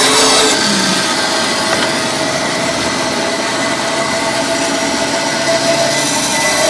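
Bandsaw running steadily, used to cut the corners off a square blank of green red oak.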